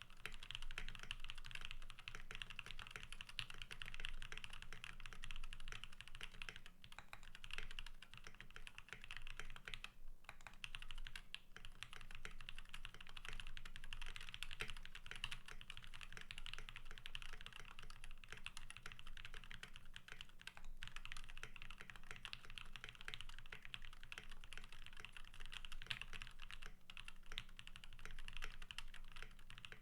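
Continuous fast typing on an HMKB65 65% custom mechanical keyboard with lubed and filmed JWICK Black switches on a steel plate and Akko ASA-profile keycaps: a steady stream of key clacks, broken by a few short pauses.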